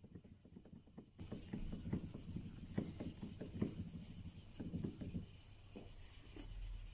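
Marples Gold Chip steel chisel being honed on a waterstone: a gritty scraping in quick repeated back-and-forth strokes, starting about a second in and easing off near the end.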